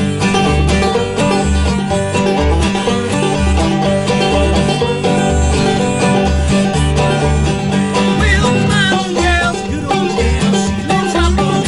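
Old-time string band playing live on banjo, acoustic guitar and upright bass, the plucked bass keeping a steady beat about twice a second under the banjo's picking.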